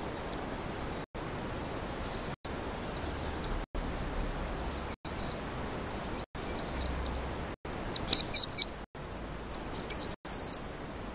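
Baby hedgehog peeping: short, high-pitched chirps in little runs that grow louder, with the loudest run of about four chirps some eight seconds in, over a steady hiss.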